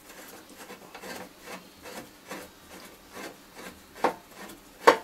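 A screwdriver turning a screw out of the tester's front panel: a run of short scraping, rasping twists, about two a second, with a sharper click about four seconds in and another just before the end.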